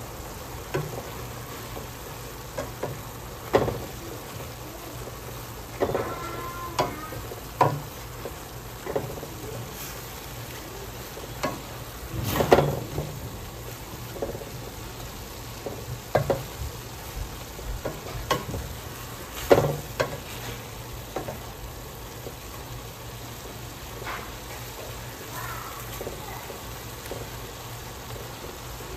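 Ground beef and onions sizzling in a stainless steel pan while a wooden spoon stirs them, with irregular knocks and scrapes of the spoon against the pan. A steady low hum runs underneath.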